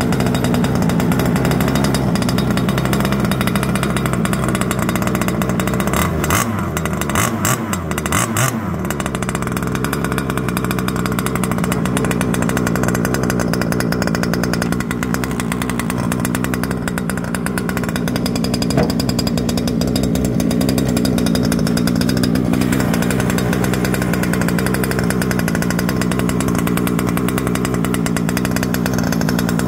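Small two-stroke engine of a 1/5-scale HSP RC truck running steadily. It gives a short run of sharp clicks about six to nine seconds in.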